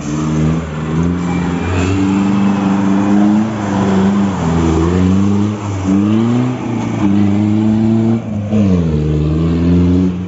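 Mahindra 4x4 jeep engine revving hard, its pitch rising and falling over and over as the wheels spin through deep mud and fling it into the air.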